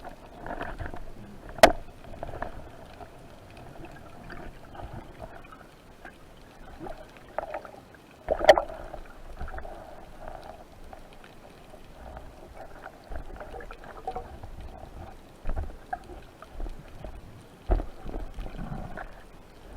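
Muffled underwater water noise, with scattered small clicks and two loud sharp knocks, about a second and a half in and again about eight and a half seconds in.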